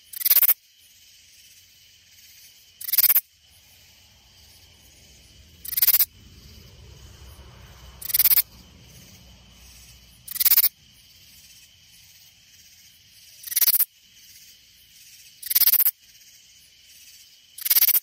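Katydid calling: a loud, harsh rasping burst about half a second long, repeated every two to three seconds, eight calls in all, over a steady faint high hum.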